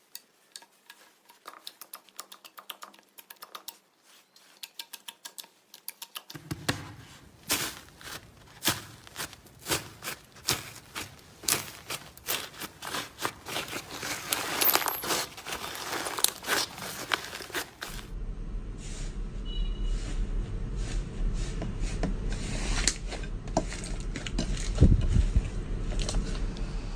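Hands squeezing, poking and pressing slime, making rapid runs of small clicks and crackles. The sound changes abruptly twice, about a quarter and two thirds of the way in, growing louder and busier.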